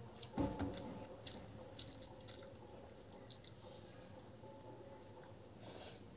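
Close-up eating sounds: fingers squishing and mixing cooked rice against a plastic plate, with wet chewing and mouth clicks. A single louder thump comes about half a second in.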